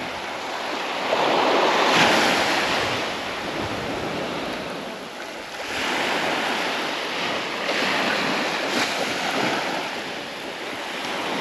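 Surf breaking on a sandy beach, waves swelling and falling back, loudest about two seconds in and again from about six to nine seconds in, with some wind buffeting the microphone.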